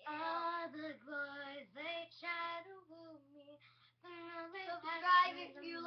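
A young girl singing a song with no instrument heard, holding notes and stepping between them; the singing drops softer for about a second just past halfway, then comes back louder.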